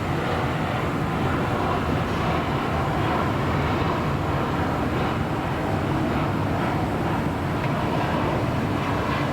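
Steady rumble of a jet airliner's engines.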